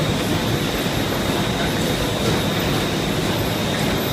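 Ding Shung FoliuMaster FM-1050 film laminating machine running: a loud, steady mechanical din of rollers and drives, with a thin steady high whine over it.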